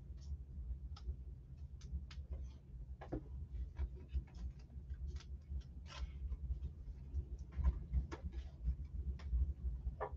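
Scattered light clicks and taps, irregular and a few each second, over a steady low hum.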